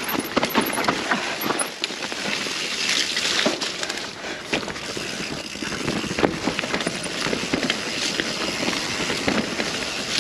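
Mountain bike riding down a woodland trail: tyres rolling over dirt and roots, with a continuous clatter of rattles and knocks from the bike over the bumps.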